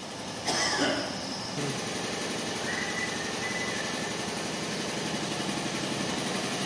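A short, loud hiss about half a second in, then an engine running steadily at idle.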